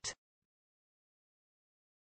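Near silence: digital silence, after the last sound of a synthesized voice's word ends in the first instant.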